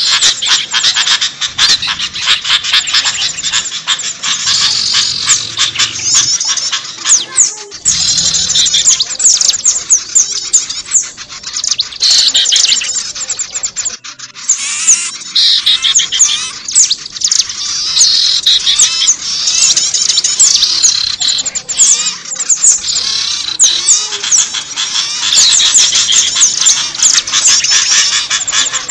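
Dense chorus of many small songbirds chirping and calling at once, rapid quick-falling notes overlapping without a break except a brief lull about halfway through: a mixed bird-lure recording of several small bird species.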